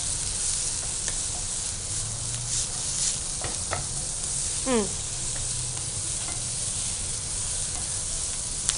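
Sliced onion, capsicum and green chillies sautéing in a little hot oil in a nonstick frying pan, a steady sizzle, stirred and scraped with a wooden spatula with a few light scrapes and taps.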